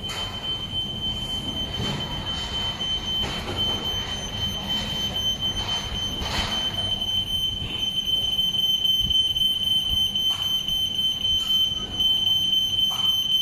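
Smoke alarm sounding a steady, high-pitched electronic tone, set off by test smoke in a production smoke test tunnel. Machinery noise and a few short knocks sit underneath.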